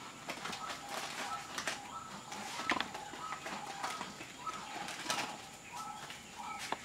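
Kittens scuffling on and around a woven plastic sack, making irregular clicks, scratches and crinkles. Short chirping calls repeat over and over in the background.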